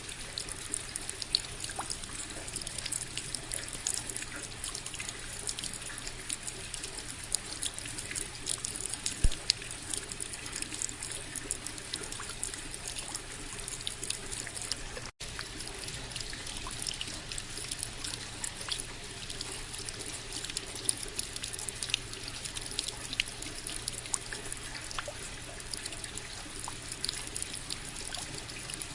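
Steady rain falling, an even hiss dotted with many small, sharp drop ticks. It cuts out for a split second about halfway through.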